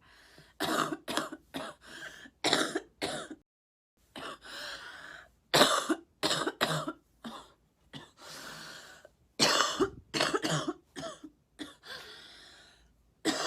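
A sick woman coughing in fits, several hard coughs at a time, about four fits in a row. She is ill with a cold and a stuffed-up nose.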